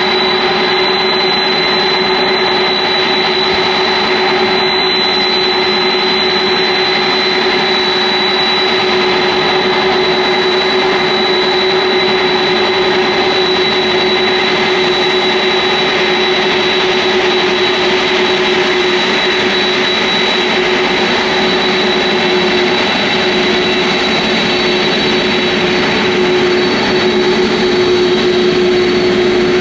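Boeing 747-400F freighter's four jet engines running steadily: a loud, even roar with a high whine and a lower hum held at constant pitch.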